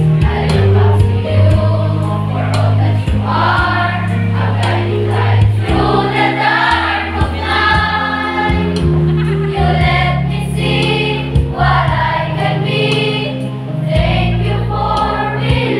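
A mixed choir of teenage boys and girls singing a song together, with an accompaniment holding long, steady low notes beneath the voices.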